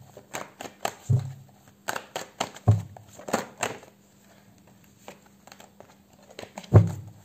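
Tarot cards being shuffled by hand: quick crisp snaps and flicks of card against card, with a few dull thuds of the deck knocking on the table. It goes quieter past the middle, and a louder thud comes near the end.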